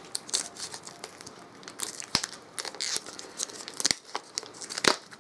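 Plastic shrink-wrap being torn and peeled off a Blu-ray steelbook case, crinkling irregularly, with a few sharper snaps about two, four and five seconds in.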